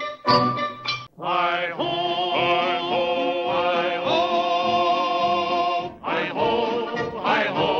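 Intro music with singing: after a short break about a second in, a voice holds long wavering notes over the accompaniment, then moves into quicker, shorter notes near the end.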